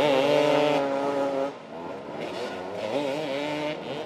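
Motoball motorcycle engines revving hard on a dirt pitch. One engine is held high and steady for about a second and a half, then engines rev again with a wavering pitch.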